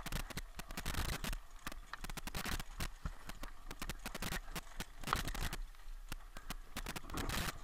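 Rapid, irregular clatter of knocks and rattles from a downhill mountain bike and its helmet-mounted camera jolting over a rough dirt trail at speed.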